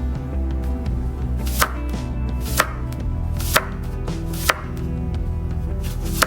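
Five sharp knocks, roughly a second apart, over soft background music.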